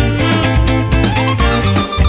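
Upbeat background music with guitar and a steady beat.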